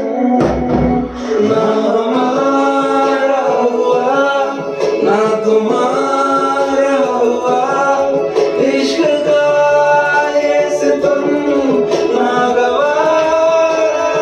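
A song with a male voice singing a held, sliding melody over instrumental backing.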